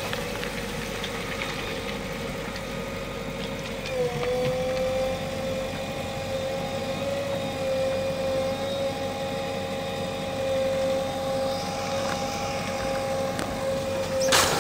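JCB backhoe loader's diesel engine running steadily under the working hydraulics, with a steady hum whose pitch dips briefly about four seconds in. A loud noisy burst starts right at the end.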